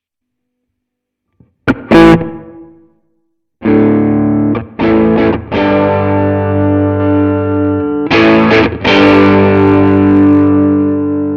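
Electric guitar, a Fender Stratocaster played through a distorted amp model on a Nux MG300 modelling processor. A single short chord stab about two seconds in, then after a pause, ringing distorted chords with a few brief stops.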